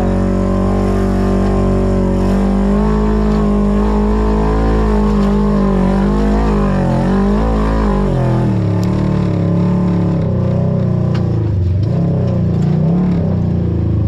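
Off-road vehicle engine running under throttle, its pitch holding fairly steady at first and then rising and dipping repeatedly from about six seconds in.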